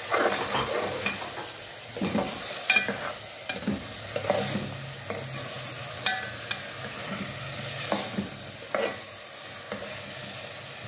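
Metal ladle stirring black-eyed peas into sizzling masala in an aluminium pot: irregular scrapes and clinks of the ladle against the pot over a steady sizzle.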